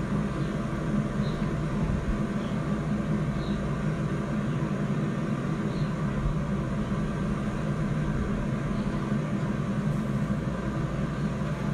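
Camera drone's propellers humming steadily as it hovers, a constant low buzz with a few steady tones.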